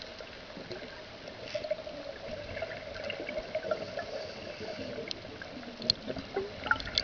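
Underwater sound through a camera housing: a scuba diver's exhaled bubbles gurgling, with scattered sharp clicks that come more often near the end.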